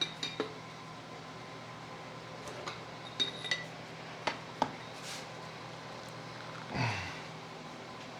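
Metal shock parts and tools clinking and clicking on a workbench, a few light knocks spread out, with a short sound falling in pitch near the end.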